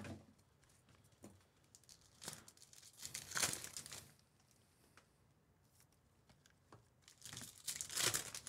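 Foil wrappers of Bowman Chrome baseball card packs being torn open and crinkled by hand, in two spells: one about two seconds in and another near the end, with light rustling between.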